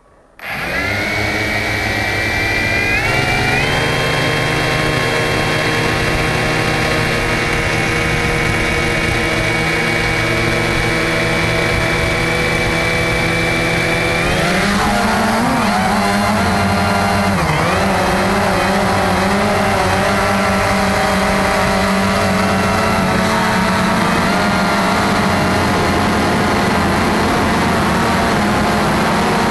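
Cheerson CX-20 quadcopter's brushless motors and propellers, heard close up from the drone's own camera: the motors start suddenly just after the start and run at a steady idle hum with a thin high whine, stepping up slightly about three seconds in. About 14 seconds in the pitch rises as the throttle comes up for takeoff, wavers briefly, then holds steady in flight.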